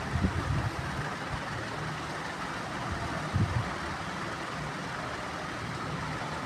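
Steady background noise with a few dull low knocks as hands grip and twist the stuck lid of a copper handi. The knocks come near the start and again about three and a half seconds in.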